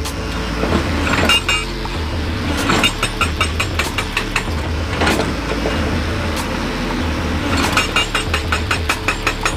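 Excavator-mounted hydraulic rock breaker hammering its chisel into stone in rapid, repeated blows over the steady hum of the excavator's diesel engine. The blows settle into a fast, even train near the end.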